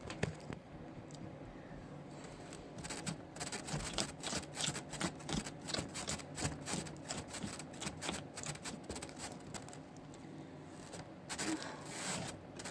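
Slime being kneaded and squeezed by hand, making irregular sticky clicks and pops. They come thickest through the middle, ease off, and pick up again near the end.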